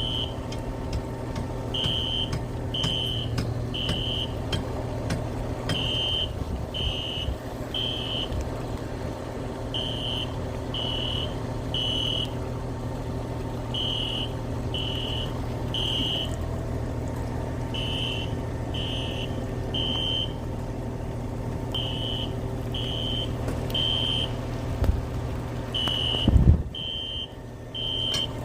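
Building fire alarm sounding in the temporal-three pattern: three high beeps a second apart, then a pause, repeating every four seconds over a steady low hum. It is a false alarm, set off by water dripping onto the main fire alarm panel. A loud low thump comes near the end.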